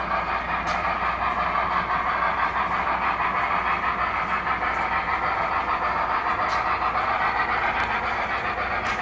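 Model railroad steam locomotive pulling a few cars along the track: a steady whir of motor and wheels on rail, with a few faint clicks.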